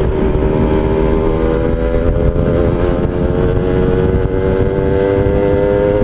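Suzuki Tornado GS two-stroke motorcycle engine pulling at a steady, slightly rising pitch under way, with heavy wind rumble on the microphone.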